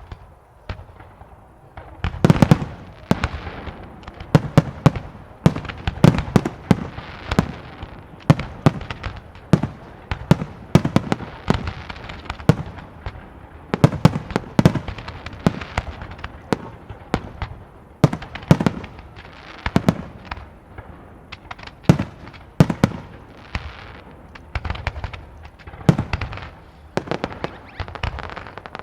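Fireworks display: a rapid, irregular barrage of aerial shell bursts and bangs, several per second, each echoing after it.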